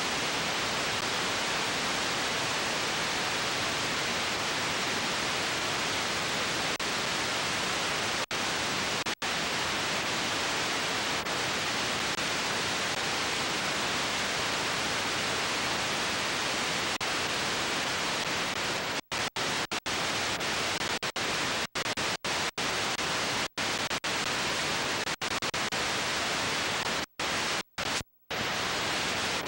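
Steady hiss of TV static, the noise that goes with snow on the screen. In the last ten seconds it cuts out to silence about ten times, each cut very short.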